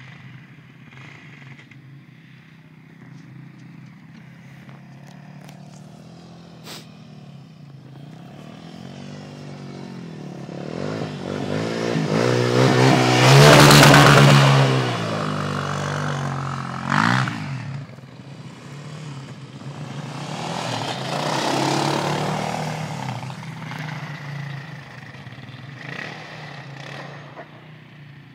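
Quad bike engines running and revving as ATVs ride over snow. Fainter at first, then a quad passes close with a loud rise and fall in pitch about halfway through, and another swells up again later.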